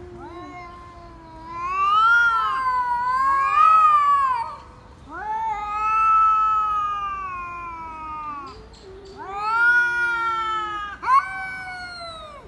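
Two cats yowling at each other in a face-off: several long, wavering wails that rise and fall in pitch, sometimes overlapping, with a short sharp cry near the end. This is the drawn-out threat caterwauling of a cat standoff.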